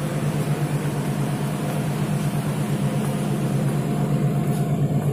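Passenger ship's engines droning steadily, heard from the open deck: a low, even, throbbing hum with a hiss of wind and water over it.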